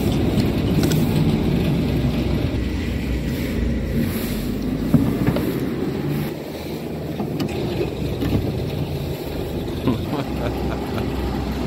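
Wind buffeting the microphone outdoors at a fuel pump: a steady low rumble, with a sharp knock about five seconds in as the nozzle is handled.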